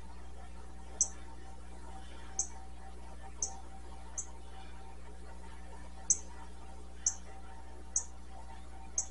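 Short, sharp, high-pitched clicks, about one a second at uneven spacing, over a steady low electrical hum.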